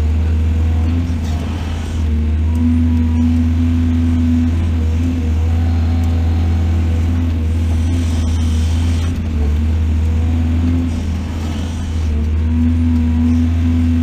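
Excavator's diesel engine running steadily with a deep drone, its tone shifting a little a few times as it works.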